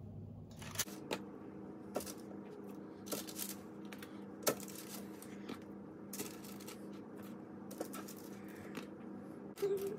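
Raw, oil-coated chicken wings being laid one by one onto a baking tray: irregular light taps and clicks over a steady low hum.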